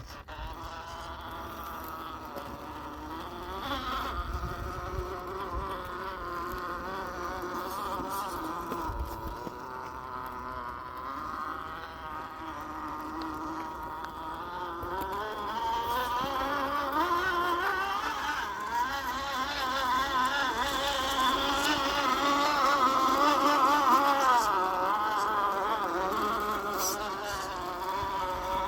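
Electric motor and gearbox of an Axial SCX10 II RC crawler whining, the pitch wavering up and down with throttle and load, louder in the second half.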